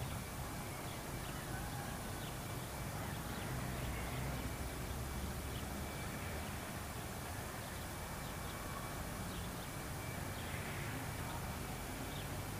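Outdoor railway-side ambience on an old VHS tape: small birds chirping in short, scattered calls over a steady low rumble and tape hiss.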